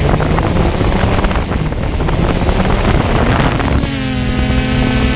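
Multirotor drone's motors and propellers running, heard through its own onboard camera: a loud rush of prop wash buffeting the microphone, joined about four seconds in by a steady whine with many overtones as it lifts off the ground.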